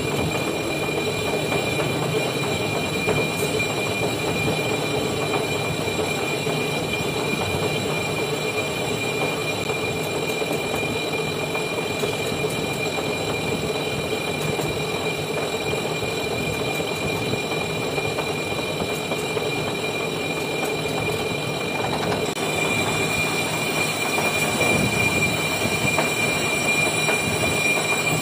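Metal lathe running with a turning tool skimming the braking face of a scored cast-iron car brake disc rotor: a steady machine hum with a constant high-pitched whine from the cut. It grows a little louder and shriller from about three quarters of the way in.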